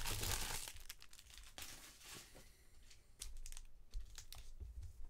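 Trading-card pack wrapper crinkling and tearing as a pack is opened, with cards being handled. A longer rustle at the start, then scattered short crinkles.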